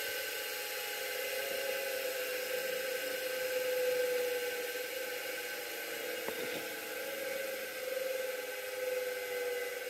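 Steady whir of a small electric motor running, its tone wavering slightly in pitch, with a faint click about six seconds in.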